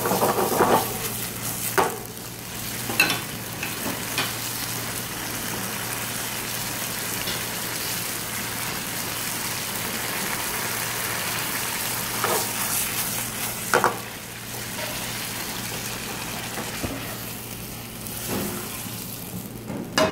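Spaghetti in tomato sauce sizzling in a frying pan over a gas flame while being stirred and tossed with chopsticks, with a few sharp knocks now and then.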